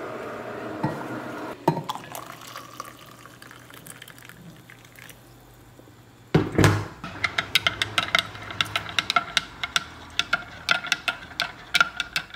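Hot water pouring from an electric kettle into a glass mug, fading out about a second and a half in. After a lull, one loud knock about six seconds in, then a quick run of sharp clinks of a metal fork against a glass bowl and glass mug.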